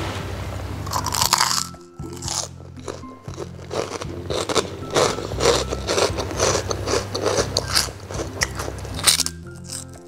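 Deep-fried pork skin cracklings being bitten and chewed close to the microphone: a rapid run of crisp crunches, over background music.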